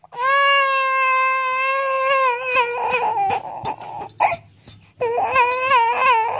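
Infant crying: one long, steady wail of about three seconds, then broken sobs, then a second run of wavering wails from about five seconds in.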